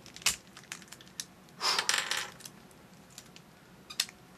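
Hard plastic clicks and scraping from the pieces of a Lingyun speedcube fitted with torpedo inserts, as a stubborn edge piece is pushed and pried into place. There is a sharp snap about a quarter second in, a longer scraping rattle around the middle, and another click near the end.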